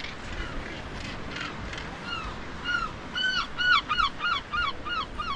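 Gull calling: a few faint calls, then from about two seconds in a loud run of arched calls that speeds up to about three a second.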